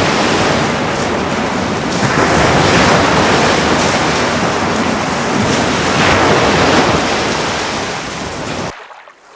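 Loud rushing noise of surging water, swelling and easing like waves, as a swimming pool's water is thrown about by an earthquake; it drops away sharply near the end.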